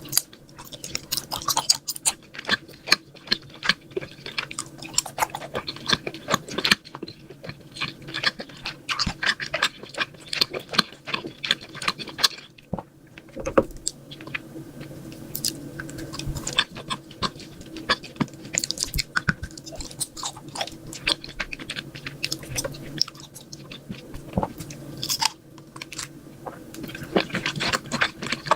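Close-miked chewing of food, full of irregular crisp crunches and clicks, over a faint steady low hum.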